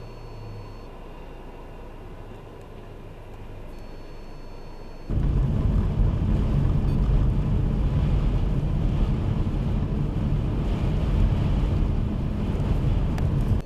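Strong blizzard wind buffeting the microphone: a loud, low, rushing noise that cuts in suddenly about five seconds in, after a quieter stretch with a faint low hum.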